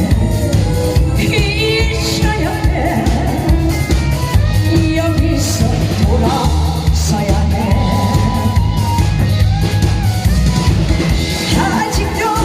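Loud music with a steady, heavy bass beat and a singing voice over it.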